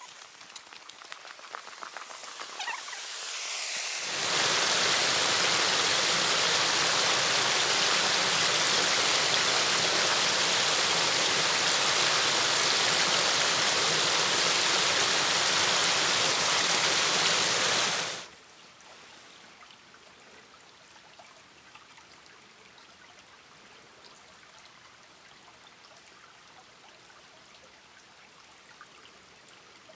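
Small waterfall pouring off a fallen log into a creek pool: a loud, steady rush of water that builds over the first few seconds and cuts off suddenly about 18 seconds in. After that comes the much fainter, steady trickle of a shallow creek.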